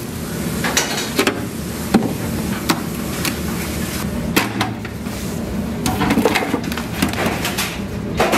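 Kitchen handling noises: scattered knocks and clatters as napa cabbage is lifted from a plastic basket into a metal basin, over a steady low hum.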